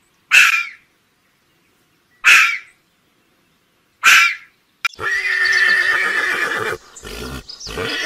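Red fox giving three short, hoarse barks about two seconds apart, then a horse neighing for nearly two seconds, with further short horse sounds near the end.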